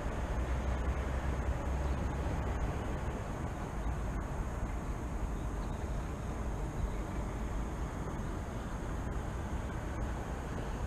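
Steady low rumble of distant city traffic with no distinct events, and a faint steady high tone above it.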